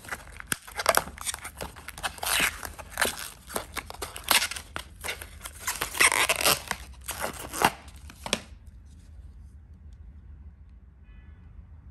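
Clear plastic protective film being peeled and crinkled off a hair clipper's plastic body: a run of irregular crackling tears that stops abruptly about two-thirds of the way through.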